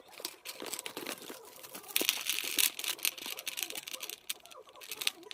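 Packaging being handled and opened: a crinkling and crackling run of small clicks, with a louder burst about two seconds in.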